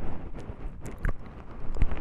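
Close-miked ASMR trigger sounds: scattered soft clicks and crackles over a low rumble, with a few sharper clicks about a second in and near the end.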